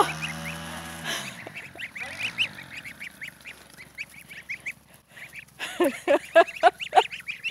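A group of goslings peeping rapidly, many short high calls overlapping. About six seconds in, a few louder, lower calls come in quick succession.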